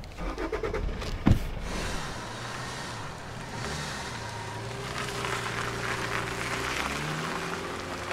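Toyota compact MPV's engine started after a brief crank, with a sharp thump about a second in. It then runs as the car pulls away, rising in pitch a couple of times.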